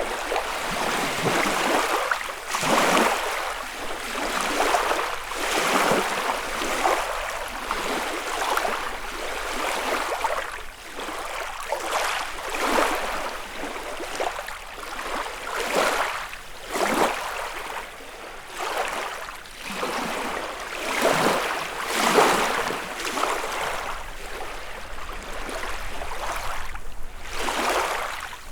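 Small lake waves lapping and breaking against the shore, one wash after another every second or two, each swelling and falling away.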